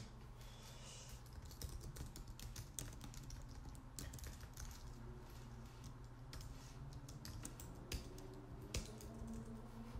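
Typing on a computer keyboard: an uneven run of faint key clicks over a steady low hum.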